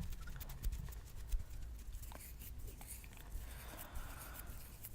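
Fingernails scratching across a palm close to the microphone: a run of quick, dry scratches and small ticks.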